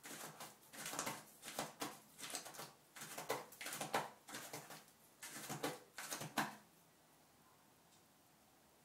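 A cat scratching and digging with its paws at a toilet-training litter insert on a toilet seat: a run of irregular scratchy strokes that stops about two seconds before the end.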